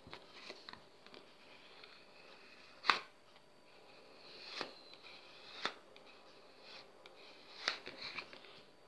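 Thin metal nail-stamping plates being handled: a few sharp clicks and taps as plates are picked up and laid down, the loudest about three seconds in, with light rustling between.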